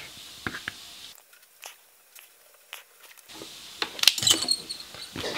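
Small clicks and taps of hands handling wires and tools on a workbench, scattered through, with a cluster of sharper clicks about four seconds in.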